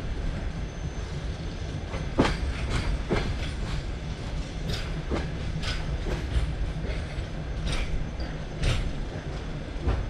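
Passenger train coaches running along the track: a steady low rumble of wheels on rail, with sharp clacks scattered at irregular intervals as the wheels pass over rail joints.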